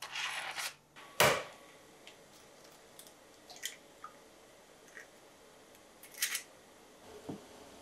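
An egg cracked sharply on a glass measuring jug about a second in, followed by small clicks of shell and a short crackle near six seconds as another egg goes in. At the start there is a brief rustle of parchment paper.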